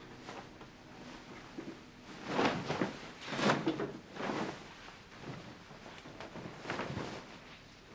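A few short scraping, rustling noises, the loudest about three and a half seconds in.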